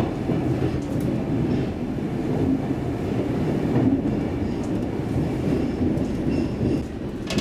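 Stockholm Metro C15 train running through a tunnel, heard from inside the car: a steady low rumble of wheels on rail, with a few sharp clicks near the start.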